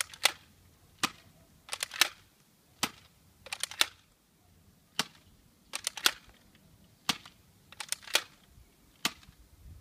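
Nerf Maverick spring-powered dart blaster being primed and fired shot after shot: sharp plastic clicks and snaps roughly once a second, some coming in quick pairs.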